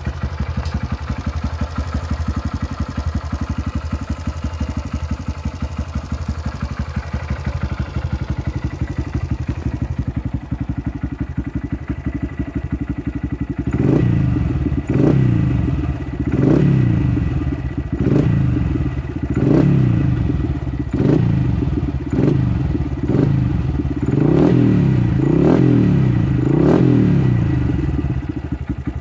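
2015 Honda Grom's single-cylinder four-stroke engine, heard through an aftermarket slip-on muffler. It idles steadily for about half the time, then gets about a dozen quick throttle blips, roughly one every second and a half, before settling back to idle near the end.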